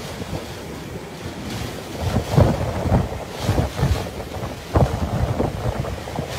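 Tropical-cyclone wind gusting hard against the phone's microphone in irregular low rumbling buffets. The strongest gusts come about two and a half seconds in and again near five seconds.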